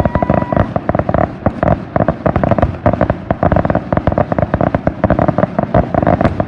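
Fireworks finale barrage: many small shells bursting in quick succession, a dense rapid crackle of reports, with a steady whistle in the first half second. The barrage cuts off suddenly at the end.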